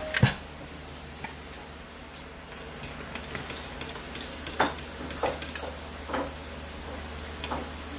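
A spoon stirring in a small container and clinking against its sides, likely mixing cornstarch for thickening: one loud knock near the start, light ticking in the middle, then several clinks with a short ring in the second half. A steady low hum runs underneath.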